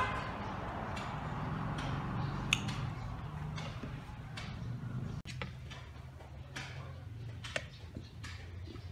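Scattered light clicks and taps of a hand-held metal vegetable shredder and fingers working shredded vegetables in a steel bowl of water, over a low steady hum.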